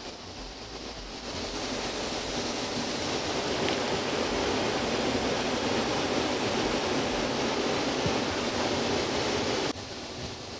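A steady rushing noise that swells in over the first two seconds, holds even, and cuts off abruptly near the end.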